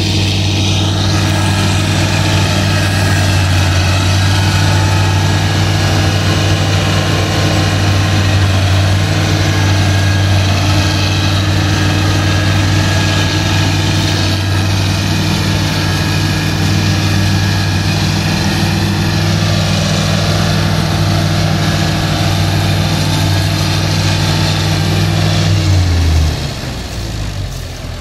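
CLAAS Crop Tiger 30 tracked combine harvester's engine running steadily at working speed while the machine harvests paddy. About 26 seconds in, the engine slows, falling in pitch and getting quieter.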